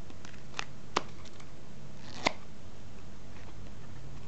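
Deck of playing cards being cut and shuffled by hand, with a few sharp card snaps, the two loudest about one and two seconds in.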